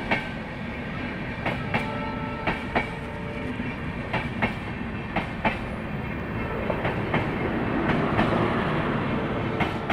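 Jodhpur–Indore Express passenger train passing close by at speed: a steady rumble of coaches on the rails, with the wheels clicking over rail joints in quick pairs every second or so. The rumble swells near the end as the last coach, a luggage-and-generator car, goes past.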